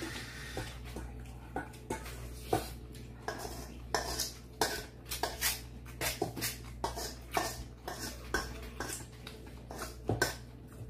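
Metal spoons clinking and scraping against stainless steel mixing bowls as rice is stirred and scooped, a steady run of irregular sharp clicks.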